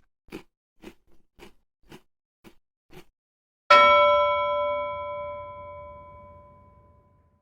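About seven soft ticks, roughly two a second, then a single bell chime struck once that rings out and slowly fades.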